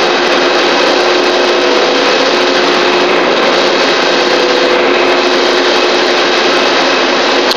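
Steady machinery noise: a loud, even hiss with a faint steady hum running under it.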